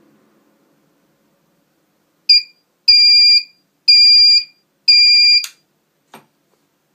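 Alarm clock buzzer sounding its alarm: one short beep about two seconds in, then three longer high-pitched beeps about a second apart, each a single steady tone. A sharp click comes at the end of the last beep, and another click follows a moment later.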